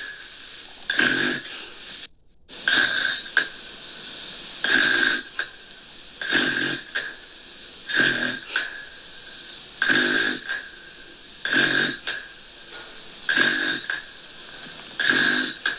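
Gentle snoring in an even rhythm, one snore about every one and a half to two seconds, with a brief break in the sound about two seconds in.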